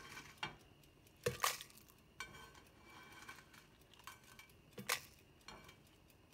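Kitchen tongs clinking against a griddle and a glass measuring cup while roasted dried chiles are picked up and dropped in: a handful of separate sharp clinks and taps, the loudest about a second and a half in and near five seconds.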